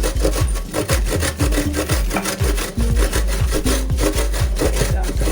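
Cheese being grated on a hand grater: quick, rhythmic rasping strokes, about four a second.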